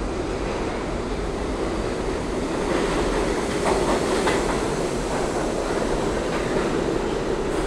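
Budd R32 subway train running into the station, a steady rumble with wheel clatter on the rails that gets louder about three seconds in as the cars reach the platform.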